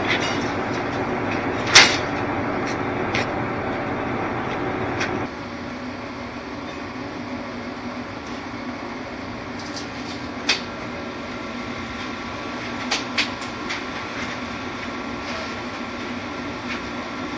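A steady machine hum, engine-like, that drops in level about five seconds in, with a few sharp knocks over it: one early, one about ten seconds in, and a quick pair a little later.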